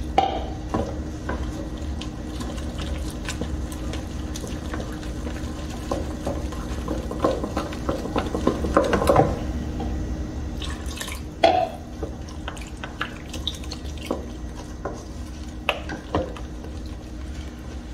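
A wooden spoon stirs a wet flour-and-cornstarch batter in a stainless steel bowl, with soft squelching and scattered knocks and scrapes of the spoon against the metal. There is one sharper knock past the middle, over a steady low hum.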